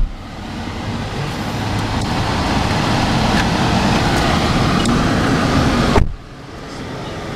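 Road vehicle and traffic rumble, building gradually, with a sharp thump at the start and another about six seconds in, each followed by a sudden drop in level.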